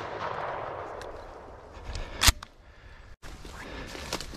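A shotgun fires once, a single sharp report about two seconds in, as the echo of earlier shots dies away. After a break near the end there is a steady low rustle.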